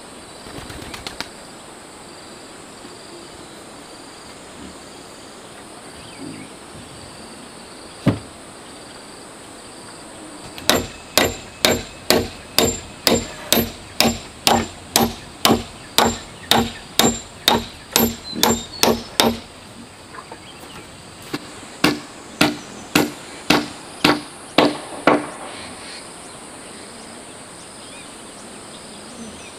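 Hammering on wood: a steady run of about seventeen blows at roughly two a second, then a short pause and about seven more, each blow with a slight ring.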